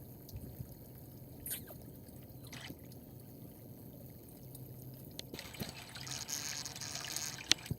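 Faint trickling water in a backyard goldfish pond. It grows louder and brighter for a couple of seconds near the end and ends with a sharp click.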